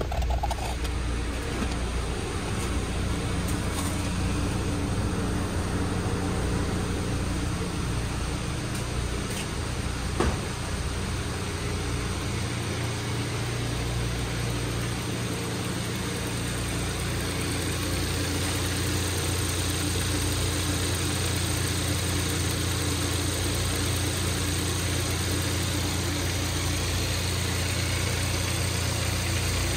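Hyundai Veloster's 1.6-litre turbocharged direct-injection four-cylinder idling steadily, with one sharp click about ten seconds in.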